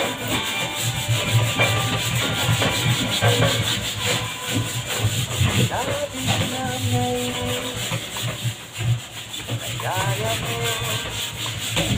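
Cloth rubbed back and forth against a wooden wardrobe door in quick, uneven scrubbing strokes, wiping off mold.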